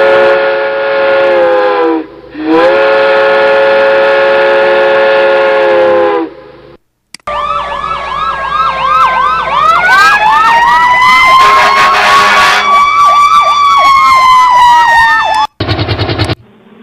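A string of sound effects. First come two long, steady horn-like blasts, each sagging in pitch as it ends. Then come overlapping emergency sirens, one yelping quickly up and down and one wailing slowly up and back down. A short burst of noise comes near the end.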